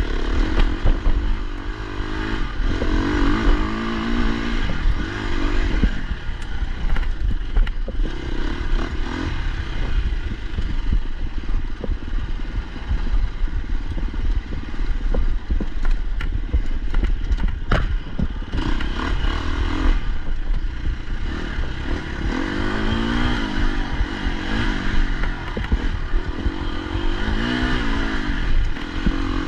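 Enduro dirt bike engine revving up and down as it is ridden hard over a rough, rocky trail, with the bike clattering over stones and a couple of sharp knocks a little past halfway.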